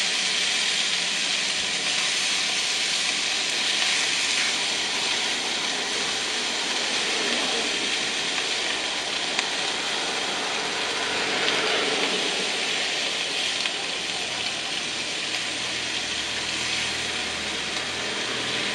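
Potatoes, peas, bacon and egg sizzling in a frying pan as they are stirred: a steady hiss.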